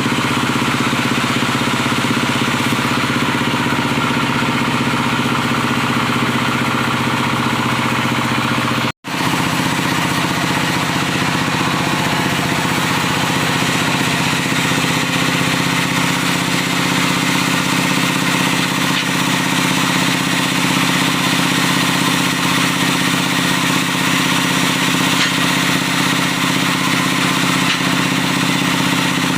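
Diesel engine of a wood-sawing machine running steadily under a constant drone. The sound cuts out for an instant about nine seconds in.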